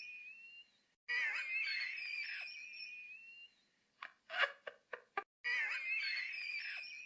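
A man's high-pitched wheezing laugh, the same snippet replayed again and again: it starts about a second in and again about five and a half seconds in, and each time it wavers, then glides up in pitch as it fades. Between the repeats comes a quick run of short, choppy bursts.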